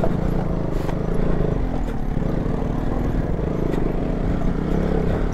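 KTM Duke 200's single-cylinder engine running at low speed on a rough, rocky dirt track, a steady low drone with a few faint clicks.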